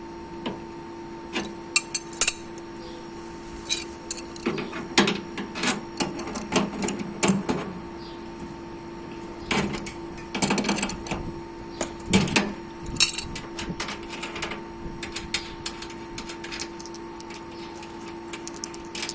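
Irregular clicks, knocks and rattles of objects being handled, in clusters, over a steady electrical hum.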